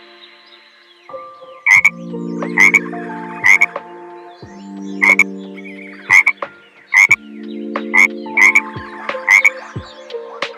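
A frog croaking over and over, about one short loud croak a second, over steady low held tones.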